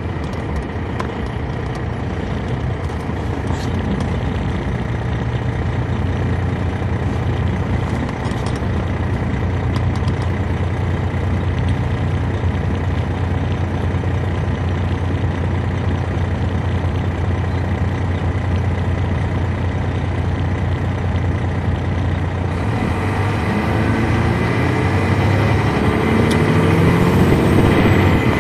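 Detroit Diesel Series 60 engine of a 2003 MCI D4500 coach, heard from on board, running with a steady low drone. From about 22 seconds in it grows louder and its pitch rises as the revs climb.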